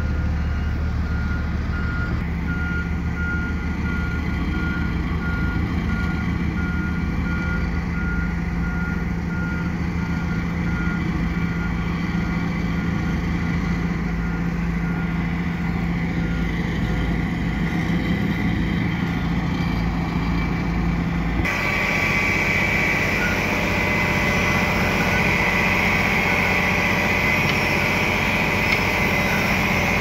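Heavy road-construction machinery running: diesel engines of asphalt rollers with a reversing alarm beeping at a steady pace for about the first third. About two-thirds in the sound cuts to a louder engine with a high whine at the asphalt paver being fed by a dump truck.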